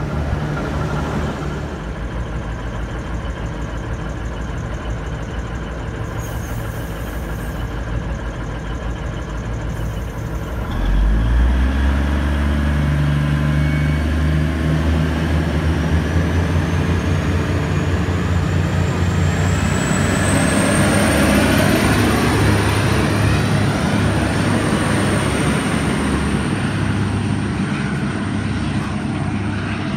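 V/Line VLocity diesel multiple unit pulling out of the platform. Its diesel engines drone low, then open up loudly about eleven seconds in as it sets off. A high whine rises in pitch over several seconds and then holds steady as the train accelerates away.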